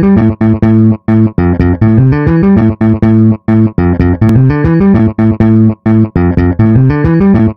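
Techno track made in the Music Maker JAM app: a plucked bass riff in short, choppy notes, broken by a few brief drop-outs.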